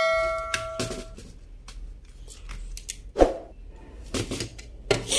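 Clicks and knocks from handling the plastic housing of an electric mosquito racket as it is being opened. A ringing tone fades out in the first second, and the loudest knock comes about three seconds in.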